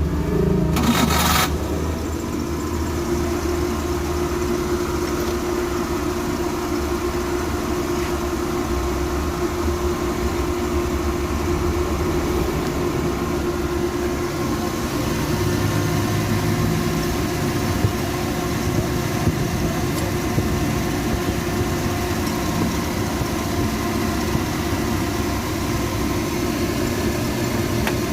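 Suzuki F10A van engine cranking and catching in the first second or so, then idling steadily on freshly fitted, re-gapped spark plugs meant to cure its misfire.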